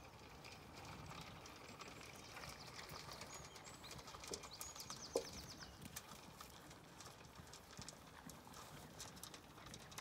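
Faint crunching and clicking of Zwartbles ewes and lambs eating feed at a metal trough, with a couple of sharper knocks near the middle.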